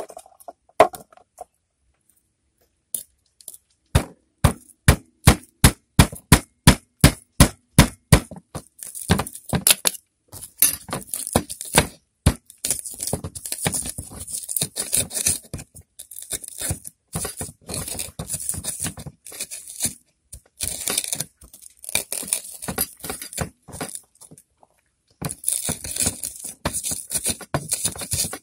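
Pestle working spices in a cobek mortar: first a quick run of sharp knocks about three a second as it pounds, then from about nine seconds on gritty grinding and scraping strokes in bursts with short pauses as the chilies and shallots are crushed.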